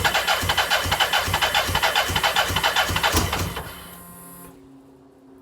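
BMW K100's starter motor cranking its inline-four engine, which turns over in an even rhythm but does not fire. The cranking stops about three and a half seconds in and winds down, leaving a faint low hum.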